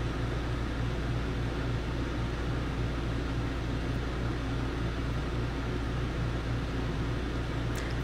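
12 V air conditioner running steadily on fan speed two, a low, even mechanical hum with a fan hiss over it, cooling under a load of about 400 watts.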